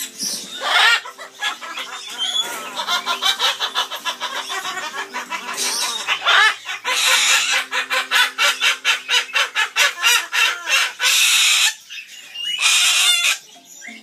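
Amazon parrots giving a rapid, cackling laugh-like call in long runs of quick pulses, broken by loud harsh screeches, the parrots' evil laugh.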